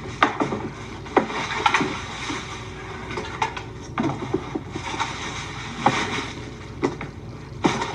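Scattered short clicks and knocks, about nine in all, irregularly spaced over a low steady hum: household handling sounds in the short horror film's soundtrack.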